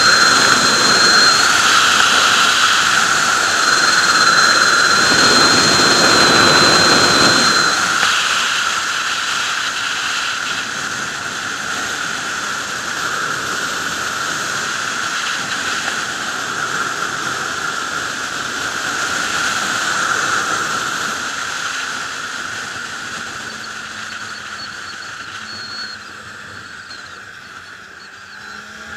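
Wind rushing over the microphone of a sportbike riding at highway speed, with the engine running underneath. The rush eases off in the second half as the bike slows, and a faint rising engine note comes in near the end.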